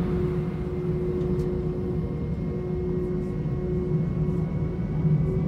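Airbus A320's IAE V2500 turbofan engines heard from inside the cabin on the ground: a steady low hum with a whine whose pitch creeps slowly upward, growing louder near the end as the engines spool up.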